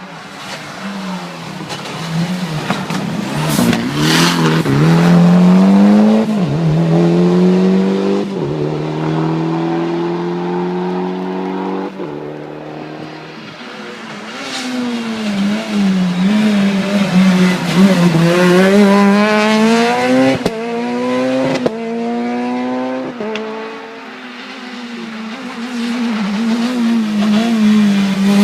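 Rally cars going by one after another, each engine revving hard with its pitch rising and dropping back as it changes gear, then fading after it passes. Sharp cracks come on some of the gear changes.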